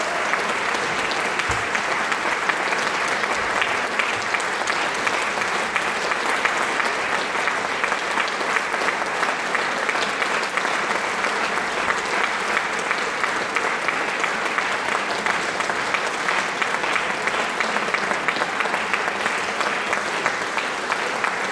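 Audience applauding, a dense, even clapping that holds steady without a break.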